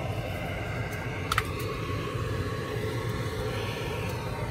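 A steady low rumble of background noise, with a brief clatter of a couple of sharp clicks about a second and a half in as a printed circuit board panel is handled on a metal workbench.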